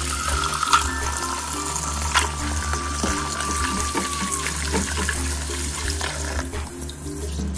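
Kitchen faucet running into a bowl of carrots in a stainless steel sink, the water splashing as gloved hands rub the carrots clean. Background music plays under it.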